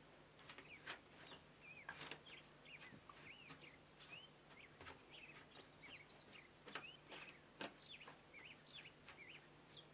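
Faint high bird chirps repeat throughout, against near silence. Soft scattered clicks and taps come from cut bell pepper strips being spread by hand over a plastic dehydrator tray and mesh sheet.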